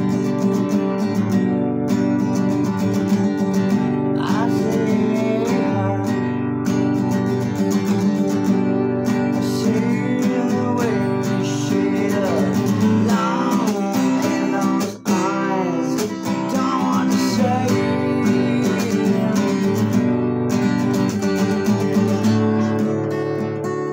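Music with steadily strummed acoustic guitar, a wavering melody line running over it from a few seconds in, with a brief drop in loudness about midway.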